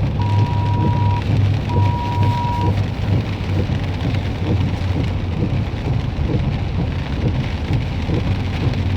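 Heavy rain beating on a pickup truck, heard from inside the cab over the truck's steady low engine and road rumble. A high electronic beep sounds in pulses of about a second, twice, and stops before three seconds in.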